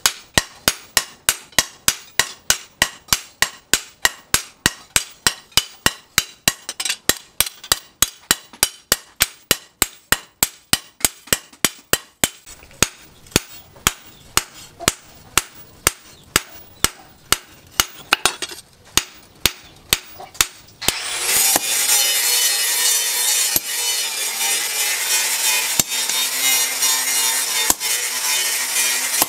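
Sledgehammers forging a red-hot chainsaw-steel knife blade on a steel post anvil, with sharp strikes at about three a second. About two-thirds of the way in, the hammering stops and a hand file rasps steadily along the blade.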